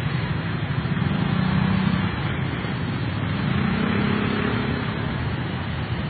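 Street traffic noise: passing cars with their engines running, a steady noise with a low engine hum that swells twice.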